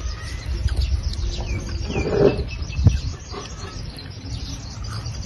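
Small birds chirping and tweeting repeatedly over a steady low rumble of wind on the microphone.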